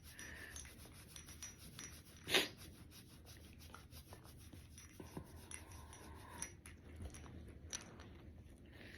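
Faint rubbing and rustling of hands stroking a German Shepherd's fur, with one brief louder noise about two and a half seconds in.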